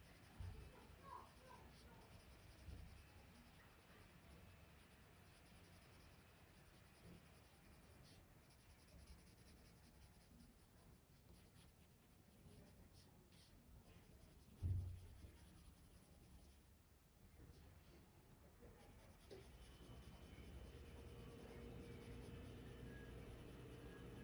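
Faint scratching of a Prismacolor Premier colored pencil shading on drawing paper, with a single soft low thump about fifteen seconds in.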